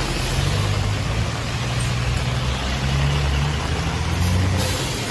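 A large bus engine running close by, its low hum shifting slightly in pitch, over the steady hiss of heavy rain on a wet road.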